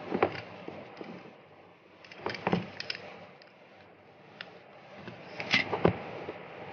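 Hands handling a cardboard smartphone box on a desk, turning it over: three clusters of short taps, knocks and scrapes (near the start, about two and a half seconds in, and near the end) over a faint steady hiss.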